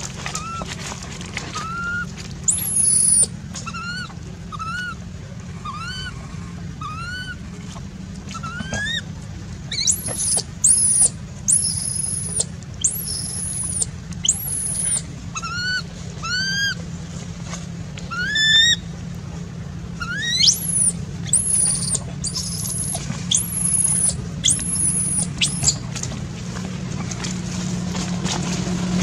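Baby macaque calling again and again: short squeaky coos that rise and dip, roughly one a second, turning into higher, sharper squeals from about ten seconds in. A steady low hum runs underneath.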